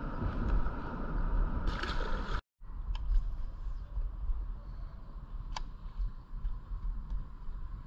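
Wind rumbling on the microphone over the water. A short hiss comes just before the sound cuts out for a moment, and there is one faint click later.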